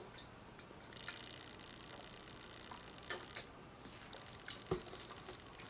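A person quietly sipping hot coffee from a paper cup, with a few faint mouth clicks and swallowing sounds in the second half.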